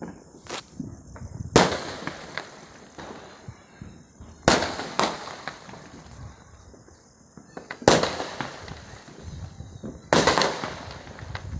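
Firecrackers going off: a series of sharp bangs a few seconds apart, each trailing off in a short crackle, with smaller pops in between.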